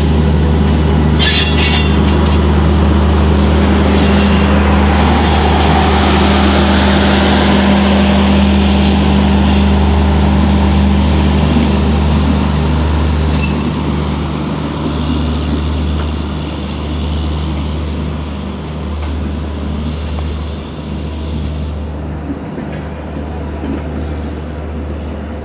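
A passenger train rolling slowly past close by: a WAP-7 electric locomotive, then its end-on-generation power car, whose diesel generator sets give a steady low drone, then the coaches going by. Loudest in the first half, easing off after about 13 seconds as the coaches pass.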